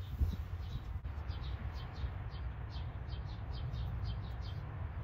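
A bird chirping over and over, short high falling chirps coming two or three a second from about a second in, over a steady low rumble.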